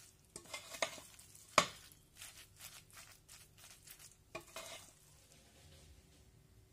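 Wooden spoon stirring and scraping wet grated potato in a glass bowl, with a sharp knock about one and a half seconds in and then a run of short scraping strokes.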